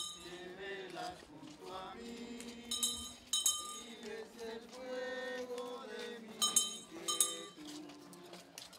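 A small bell struck in pairs of ringing strokes, about every three to four seconds, over people singing with long held notes.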